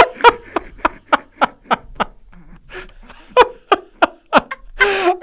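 A man and a woman laughing helplessly: a run of short, pitched pulses of laughter, about three or four a second, dying down for a moment around the middle before picking up again.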